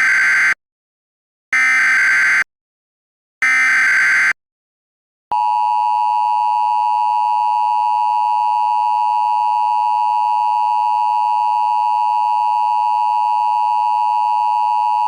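Emergency Alert System signal: three short bursts of SAME header data screech, each about a second long with a second's gap between them, then the steady two-tone EAS attention signal, held for about ten seconds before it cuts off sharply.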